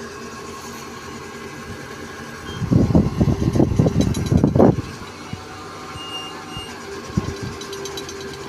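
Heavy machinery engine running steadily. About two and a half seconds in comes a loud, irregular rumbling burst lasting about two seconds, and later a short steady tone sounds.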